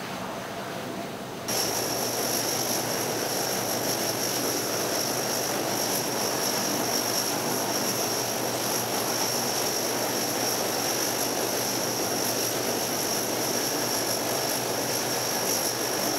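Four-engine turboprops of a ski-equipped LC-130 Hercules running steadily: a broad rushing drone with a steady high-pitched whine over it. The sound cuts in abruptly, louder, about a second and a half in.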